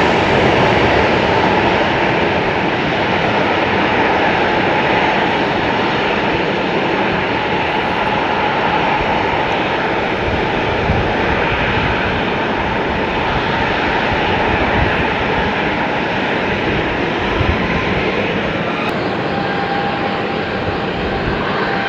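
Airliner jet engines, a loud steady rush with a faint steady whine in it, easing off slightly toward the end.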